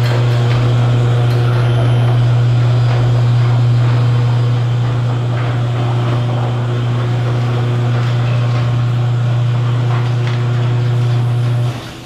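A loud, steady low hum under a noisy wash, with the character of an engine or vehicle, cutting off suddenly near the end.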